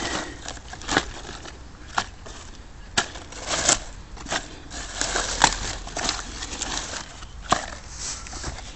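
Crisp cabbage leaves and garden netting being handled: a low rustle broken by irregular sharp crackles and snaps, about one a second.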